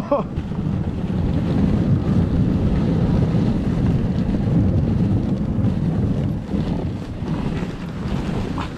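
Low, steady wind noise buffeting the microphone on a moving dog sled.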